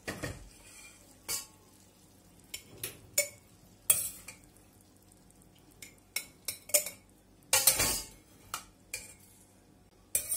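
Metal spoon scraping and clinking against a stainless steel pot and a glass jar as cooked green beans are spooned into the jar: a string of separate scrapes and clicks a second or so apart, the longest about three quarters of the way in.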